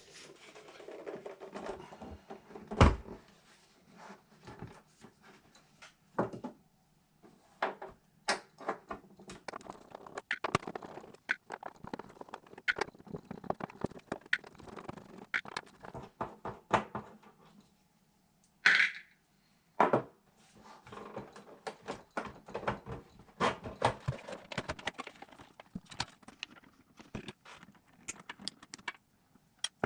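Workbench handling of a DigiTech RP-1 guitar multi-effects unit being opened up: scattered clicks, knocks and light clatter of tools, screws and the casing. The loudest is a knock about three seconds in, and there is one short, higher-pitched sound a little past the middle.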